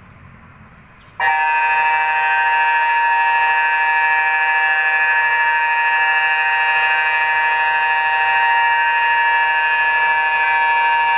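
InaTEWS tsunami early-warning siren sounding a steady, unwavering tone that starts abruptly about a second in and holds without rising or falling, as part of a test of the warning system.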